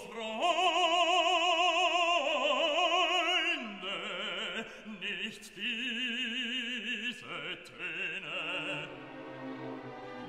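Background music in an operatic classical style, with long held notes sung or played with a wide vibrato.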